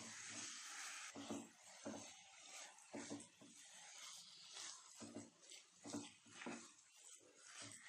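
Silicone spatula scraping and pressing grated coconut and condensed milk around a nonstick pan. The strokes are faint and uneven, about two a second, after a steady hiss that cuts off about a second in.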